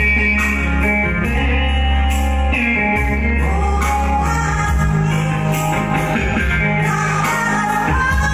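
A woman singing live into a microphone with amplified instrumental backing, holding long high-pitched notes.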